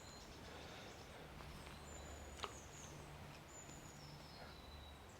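Faint outdoor background with a few thin, high bird whistles, some falling slightly in pitch, and a single sharp click about two and a half seconds in.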